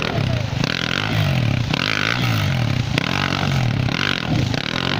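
Dirt bike engine revved hard again and again, its pitch rising and falling about once a second, while the rear wheel spins without grip in a rocky stream and churns up spray.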